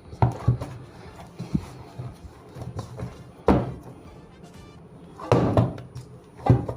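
Dull thumps and knocks of chin chin dough being pressed and worked by hand in a mixing bowl, about six uneven impacts.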